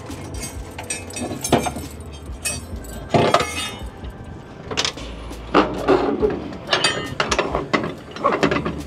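Irregular metal clanks, clinks and rattles from working a flatbed trailer's strap winches and tie-down hardware, over a low steady hum.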